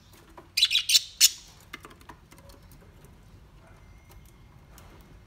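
Green-winged macaw giving a quick run of three or four short, harsh squawks about half a second in, followed by a few faint clicks.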